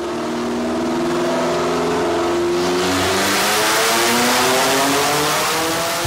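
Car engine accelerating hard, its pitch climbing steadily as it grows louder, peaking about four seconds in.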